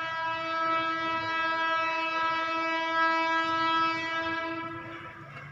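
Indian Railways locomotive horn on the approaching Raptisagar festival special: one long blast at a steady pitch that fades out near the end.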